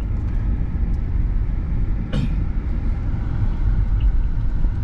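Steady low rumble of a moving vehicle heard from inside the cabin, with one short sharp click about two seconds in.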